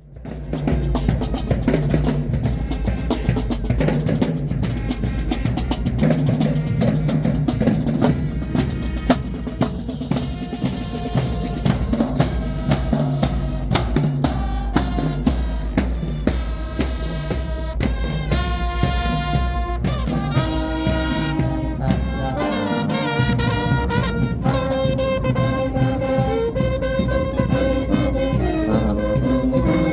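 High school marching band playing: bass drums and snares keep a steady beat while the brass section plays held notes that grow stronger about halfway through.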